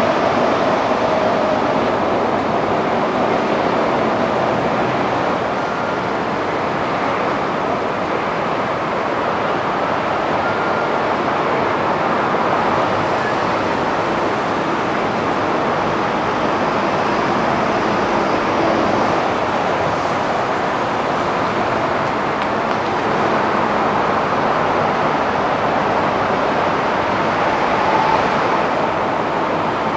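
Steady airport apron noise: an even rumble and hiss with no distinct events.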